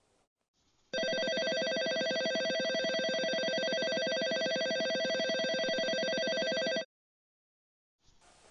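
Electric train-station departure bell ringing steadily with a rapid, even clatter for about six seconds, starting about a second in and cutting off abruptly.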